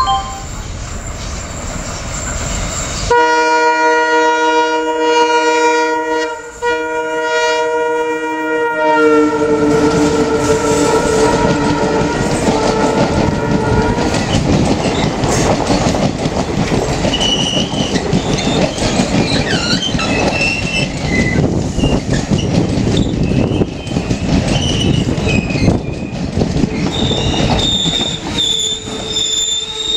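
WDG3A diesel locomotive sounding a long horn blast, briefly broken midway, whose pitch drops as the locomotive passes. Then the passenger coaches rattle and click past over the rail joints, with wheels and brakes squealing high as the train brakes hard to halt at the station.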